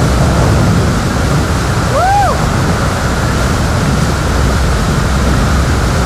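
Large waterfall in heavy monsoon flow: a loud, steady rush of water, strongest at the low end. About two seconds in, one short call rises and falls in pitch over it.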